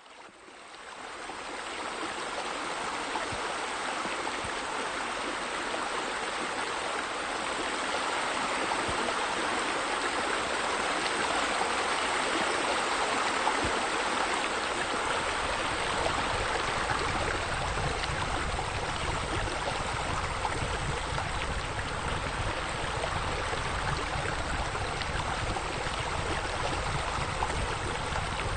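Running water, a steady splashing rush of the kind a pool waterfall or fountain makes. It fades in over the first second or two, and a deeper rumble joins it about halfway through.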